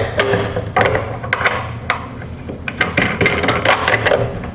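Electric meat slicer's food carriage being fitted back onto the slicer by hand: irregular clicks, clanks and scraping of metal parts sliding and seating against each other.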